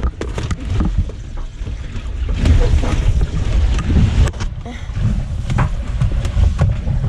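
Low rumble and sloshing inside a sailboat's bow under way, with scattered knocks and rustling as towels are stuffed into a crack in the hull that is taking on water.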